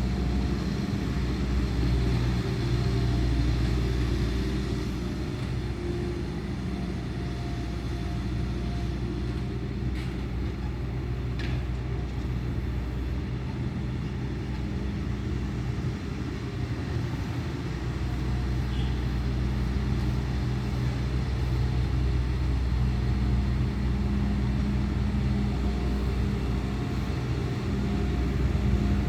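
Bobcat S650 skid-steer loader's diesel engine running steadily at work, a low rumble that swells and eases a little in level. A couple of faint clicks come about halfway through.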